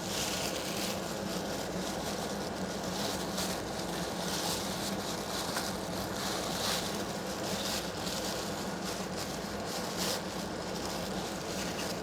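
Tissue paper rustling and crinkling as a wrapped figurine is unwrapped, over a steady low background hum.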